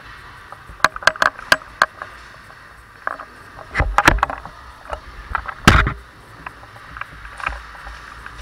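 Close clatter and footsteps of a player moving with a rifle: irregular clicks and knocks, with one loud thump about two thirds of the way through.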